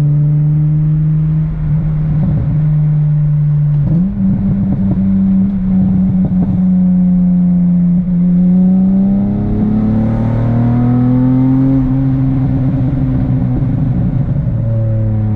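Acura TL's V6 engine heard from inside the cabin while driving: a steady drone whose pitch steps up about four seconds in, climbs gradually as the car accelerates from about eight seconds, then falls back near the end.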